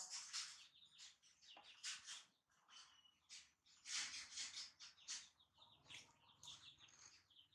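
Small birds chirping: faint, repeated short, high-pitched chirps.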